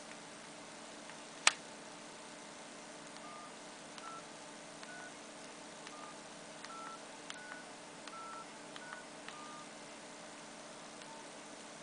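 Nokia 8600 Luna keypad tones as digits are dialed: about nine short beeps a little under a second apart, their pitch stepping up and down from key to key. A single sharp click about a second and a half in is the loudest sound.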